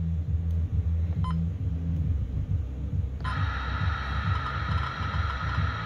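First Alert WX-167 weather radio giving a short key beep about a second in. About three seconds in, its speaker switches on with a steady hiss of weather-band reception. A low hum runs underneath throughout.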